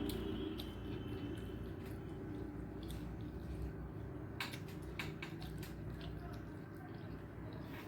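Eating sounds: a person chewing a mouthful of food, with soft wet squishing and scattered small clicks.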